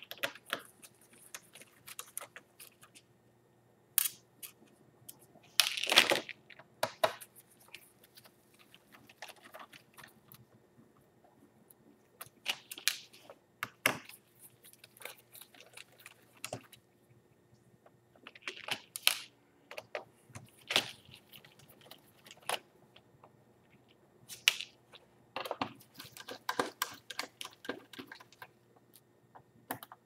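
Irregular clicks, taps and short scrapes of a small screwdriver unscrewing and handling the screws in the back case of a Dell XPS 18 tablet, over a faint steady hum.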